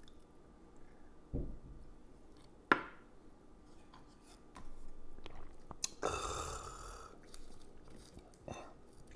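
A man eating at the table: quiet chewing with a few sharp clicks of tableware, a low thump about a second and a half in, and a breathy rush of noise about six seconds in.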